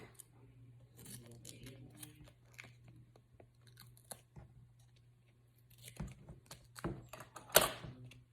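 Duct tape being pulled from the roll and handled over a cardboard tube: scattered crackles and small clicks, then a few louder rips in the last two seconds, the loudest near the end.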